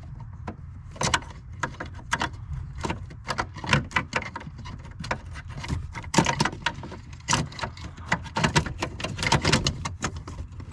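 Irregular metallic clicks, rattles and knocks of a truck's parking brake cable and handle assembly being worked loose by hand, over a steady low hum.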